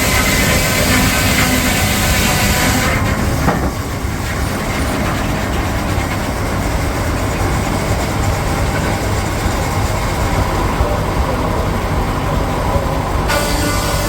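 Peerless steam traction engine driving a sawmill, running steadily and loudly. A high hiss drops away about three seconds in and comes back near the end.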